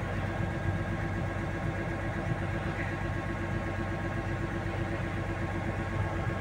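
Hitachi hydraulic excavator's diesel engine idling steadily, an even hum that holds one pitch throughout.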